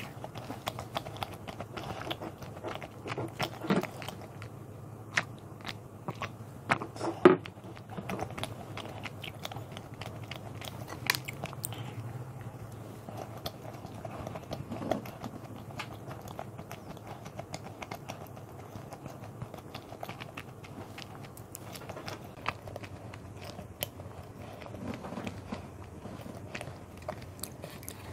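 A person chewing a soft Krispy Kreme strawberry doughnut, with steady mouth sounds and scattered small clicks of lips and tongue; the sharpest click comes about seven seconds in.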